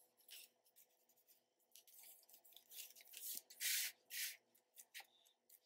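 Hands rubbing and smoothing paper flat on card stock: faint, short papery scuffs, the louder ones about three to four seconds in.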